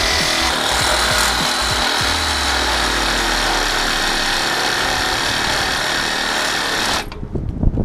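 Reciprocating saw (Sawzall) cutting through seized steel nuts and studs on a light mount, running steadily, then cutting off suddenly about seven seconds in, followed by a few knocks.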